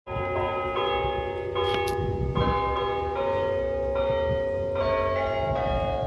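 Church bells ringing, several tones sounding together and overlapping, with a new strike joining about every second, over a low outdoor rumble.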